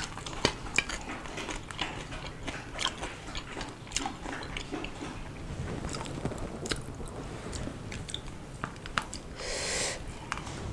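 A person eating by hand close to the microphone: biting and chewing mouthfuls of small fried fish and greens, with many small wet clicks. There is a short hissing breath-like noise near the end.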